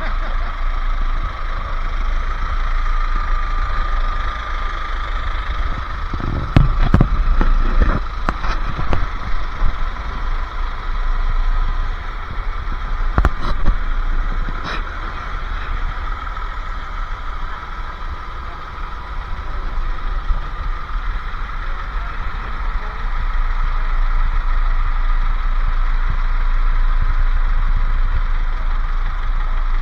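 Truck engine running steadily with road or engine rumble, broken by a few sharp knocks and rattles about a quarter of the way in and again near the middle.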